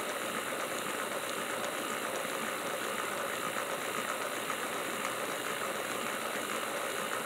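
Mantua 0-6-0T 'Little Six' model locomotive running steadily on a roller test stand at low throttle, its five-pole open-frame motor turning the drivers with a steady whir: a nice quiet motor.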